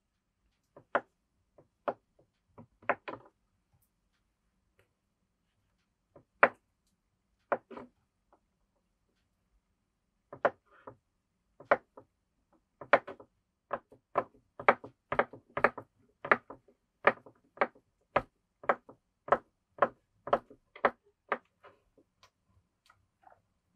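A series of sharp knocks, probably in a small room: a few scattered ones at first, then, from about halfway through, a fairly steady run of about two knocks a second.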